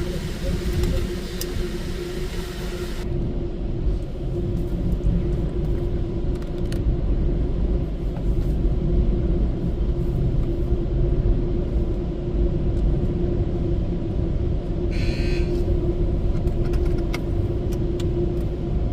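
Low rumble of a car heard from inside its cabin, with a steady hum. A hiss in the higher range cuts off suddenly about three seconds in, and there is a brief higher sound about fifteen seconds in.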